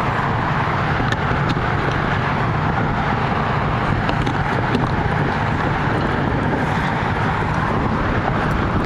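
1976 BMW 2002's four-cylinder engine idling steadily, an even low running sound with no change in speed.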